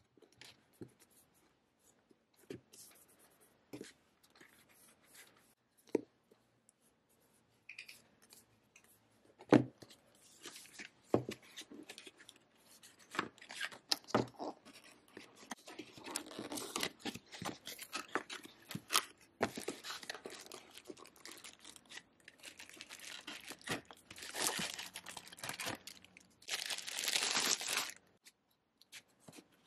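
Hands unpacking a parcel: a few light taps and knocks of a book and a cardboard box on a tabletop, then a long stretch of rustling and tearing of packaging as a boxed travel jewellery case is opened and unwrapped, loudest in two bursts near the end.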